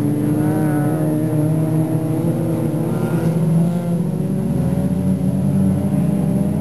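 Race car engines on an ice-racing course revving, their pitch rising and falling as the cars accelerate and slide around the track.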